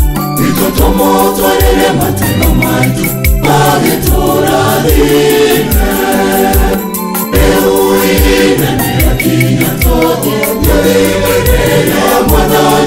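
Mixed church choir of men's and women's voices singing a gospel song in harmony, over a steady low drum beat about twice a second and quick ticking percussion.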